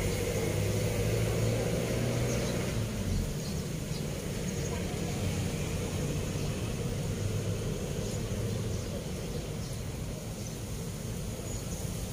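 Steady low rumble of road traffic crossing a concrete highway bridge.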